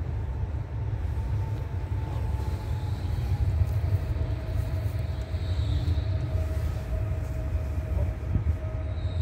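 Pesa Elf EN76 electric multiple unit approaching along the track over a steady low rumble. A thin whine from the train steps down in pitch about three and a half seconds in and then holds steady.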